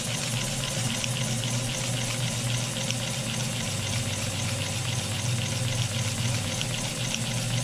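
Double-acting model steam engine running flat out on steam from a wallpaper stripper boiler with no throttle, its steam hissing with a fast, even chuffing flicker. A steady low hum runs underneath.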